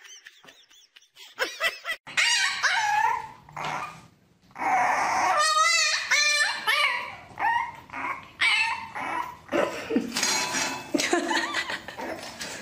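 A puppy yapping and whining in high-pitched, bending cries that start about two seconds in, with a fast warbling run of yips in the middle.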